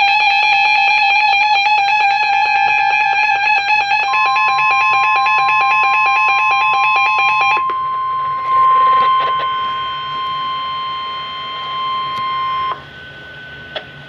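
The steady 1050 Hz NOAA Weather Radio warning alarm tone, which signals that a warning follows. It comes in about four seconds in, holds for about eight seconds and cuts off suddenly. Before it, and overlapping its first few seconds, a rapidly warbling electronic tone pattern plays, and near the end there is a short stretch of quieter radio hiss with a click.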